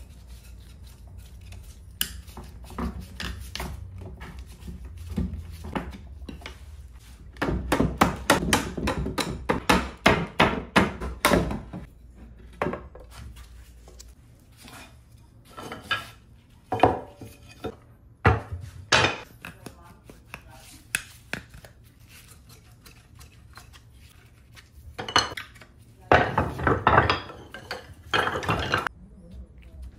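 A mallet hammering on an antique wooden chair frame to knock its old joints apart: a quick run of blows about a quarter of the way in, then scattered single knocks. Near the end, loose wooden spindles and rungs clatter against each other and the bench.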